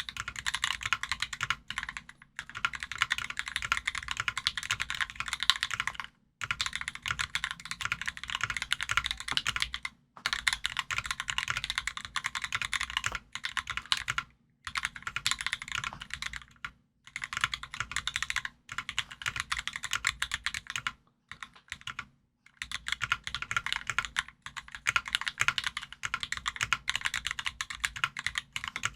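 Continuous typing on an NK65 aluminum mechanical keyboard with lubed Durock Smokey linear switches and PBT keycaps. The keystrokes come in runs of a few seconds, broken by short pauses about every two to four seconds.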